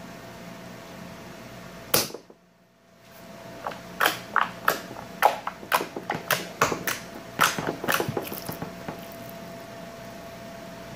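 Slime clicking and popping as fingers poke and press into it in a bowl: a run of sharp, irregular pops, about three a second, from about four seconds in, thinning out near nine seconds, after a single sharp click about two seconds in. A steady low hum runs underneath.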